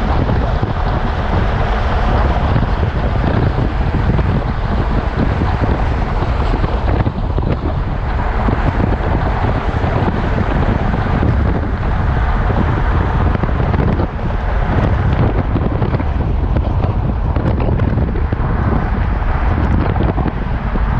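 Steady wind rush buffeting the microphone over the road noise of a moving vehicle.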